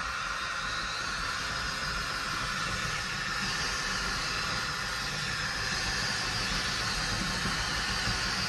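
Scratch-built 1:15 scale radio-controlled hydraulic excavator running, its hydraulic pump and drive motors giving a steady whirring hiss as it tracks across the floor, turns and moves its arm; the hiss gets brighter a few seconds in.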